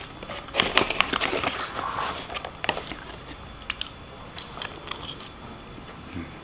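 Close-up eating sounds: chewing fried rice and noodles with sharp spoon-and-plate clicks and some crinkling, busiest from about half a second to two and a half seconds in, then only scattered clicks.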